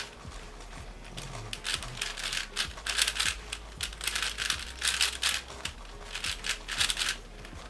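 Speed cube being turned fast by hand: rapid bursts of plastic clicking and clacking as the layers snap round, with short pauses between the bursts.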